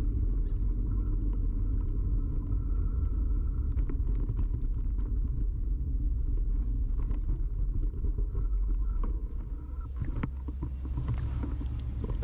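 Bicycle riding as picked up by a camera fixed to the bike: a steady low rumble of tyre and road vibration through the frame. Near the end the rumble eases into a run of sharp rattling clicks.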